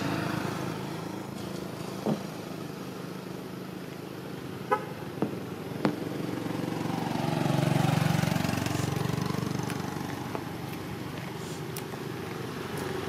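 Road traffic: motor vehicles passing, their engine and tyre noise swelling to loudest about eight seconds in, with a few short sharp blips along the way.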